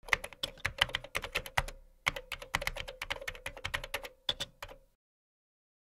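Keyboard-typing sound effect for on-screen text being typed out: rapid key clicks, several a second, with a short pause about two seconds in, stopping about five seconds in.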